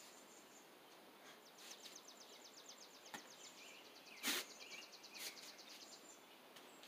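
Quiet outdoor background with a small bird's rapid, high trill of short notes lasting about three seconds. About four seconds in comes a brief sharp swish from a karate movement, the loudest sound, with a couple of fainter ticks around it.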